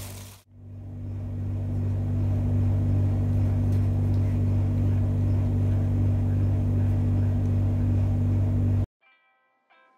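Steady low humming drone with a few strong fixed low tones, dipping briefly just after the start and then cutting off suddenly near the end, after which a few faint high tones sound.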